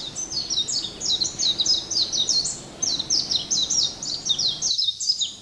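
Songbirds chirping fast and continuously: a rapid string of short, high notes, each sweeping downward, several a second.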